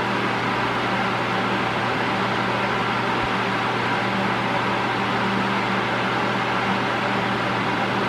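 Mondial Turbo Force 8, a 40 cm eight-blade 140 W electric fan, running steadily at maximum speed: an even rush of air over a low motor hum.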